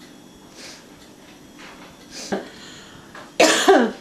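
A person coughing: one short cough about two seconds in, then two hard coughs in quick succession near the end.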